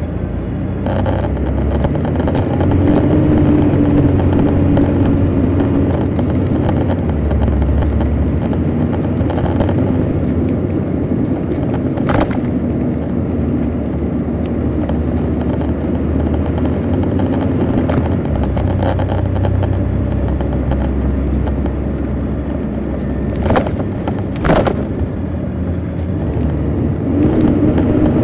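Detroit Diesel Series 60 inline-six diesel of a 2002 MCI D4000 coach running with the bus under way, heard from on board, the engine note swelling a couple of seconds in and again near the end. A few sharp knocks from the bus come through around the middle and twice more near the end.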